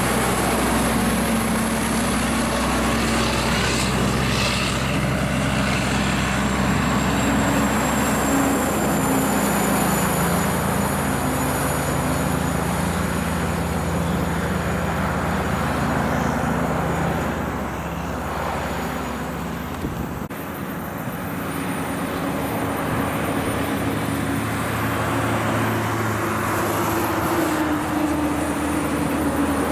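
Heavy diesel trucks working up a steep grade. A cab-over logging truck with a Cummins diesel pulls away uphill with its engine pitch changing in steps. About two-thirds of the way through, the sound switches to another heavy truck approaching, its engine pitch rising.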